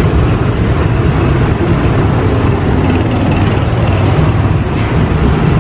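Steady low rumble of street traffic and engines running.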